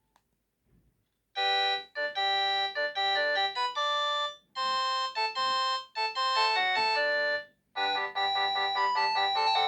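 Samsung SGH-T100 mobile phone playing a built-in synthesized ringtone melody through its speaker. The melody starts about a second and a half in after near silence and runs in short phrases of several notes at once, with brief breaks about four and a half and seven and a half seconds in.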